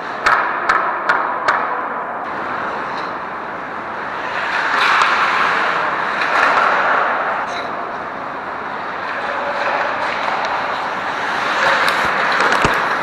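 Ice hockey play on a rink: four sharp clacks in quick succession in the first second and a half, then the hiss and scrape of skates carving the ice, swelling a few times as players move.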